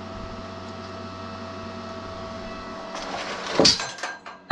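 A steady machine hum with several fixed tones, then about three and a half seconds in a short loud scraping clatter as something is handled.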